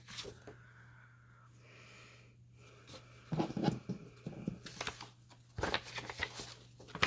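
Paper cutouts and cards being handled and shuffled, rustling and tapping in irregular bursts from about three seconds in, over a faint steady low hum.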